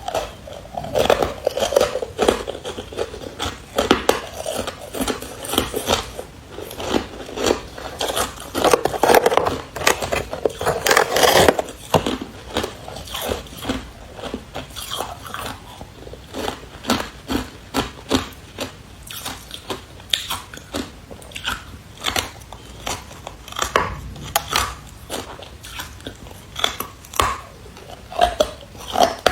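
Hard carbonated ice being bitten and chewed close to the microphone, a rapid run of crackling crunches. The crunching is densest for the first twelve seconds or so, then comes as sparser separate bites and crunches.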